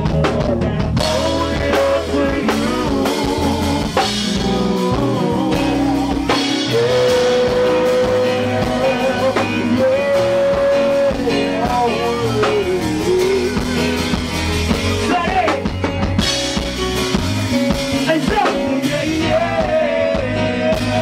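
Live go-go band music: drums and band playing while a lead vocalist sings into a microphone, holding long notes and sliding between them.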